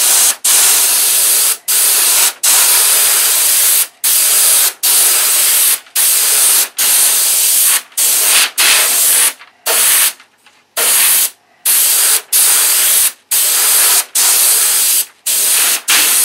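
Airbrush spraying paint, a hiss in strokes of about a second each with short breaks between them, and a longer break about ten seconds in.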